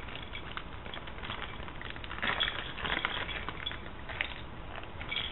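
Crinkling and rustling of a new parts package being opened by hand, with scattered small clicks, busiest about two to three seconds in.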